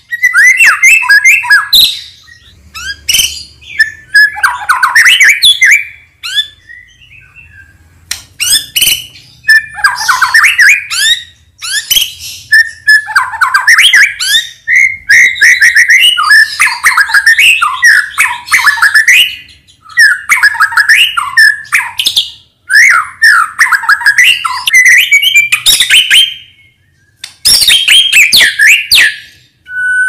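White-rumped shama (murai batu) singing: loud, varied phrases of whistled notes mixed with rapid clicking notes, delivered in bursts of a few seconds with short pauses between them. This is a lure song (pancingan), played to get other caged shamas singing and responding.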